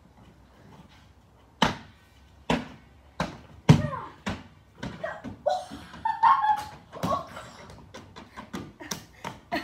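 A series of sharp thumps as a boy kicks and hops after a large inflatable ball, about five distinct hits in the first half. In the second half, short vocal sounds from the boy come in among further knocks.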